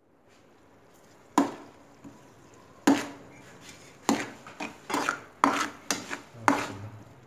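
A metal spatula knocking and scraping against a metal frying pan while stirring a tomato and chilli mixture: about nine sharp, ringing clanks at uneven intervals, coming faster in the second half.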